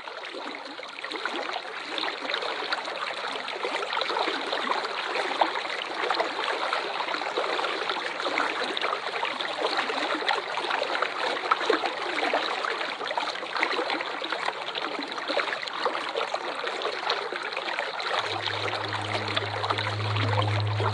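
Steady rush of falling water from a waterfall, fading in over the first second or two. A low steady hum comes in about three seconds before the end.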